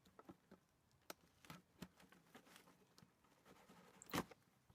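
Near silence, broken by a few faint scattered clicks and one short, somewhat louder knock about four seconds in.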